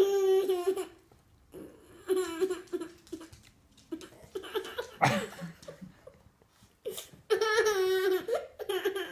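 A toddler laughing in several short, high-pitched bursts of giggles, with a sharp sudden sound about five seconds in.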